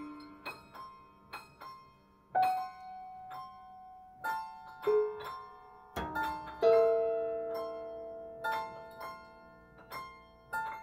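Prepared Disklavier grand piano, with glass objects and felt laid in its strings, sounding sparse single notes at irregular times in semi-random patterns. Each note rings and fades, and the loudest comes about six and a half seconds in.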